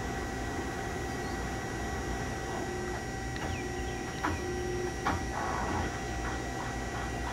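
Steady machine hum from a Kingston LC38X160 CNC flat-bed lathe as its tailstock quill is run, the tailstock handwheel spinning. A few sharp clicks come about three and a half, four and five seconds in. Light, even ticking at about three a second follows near the end.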